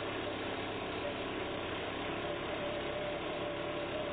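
Hollow flight auger drill rig running steadily as it drills into the ground, a constant engine drone with a steady tone that gets stronger about halfway through.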